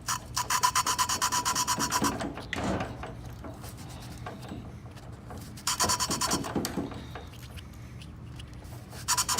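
Exhaust valve being lapped into its seat with valve grinding compound: gritty rasping in quick, even back-and-forth strokes, in three bursts of one to two seconds. The lapping is meant to make the valve seal after it leaked in a water leak test.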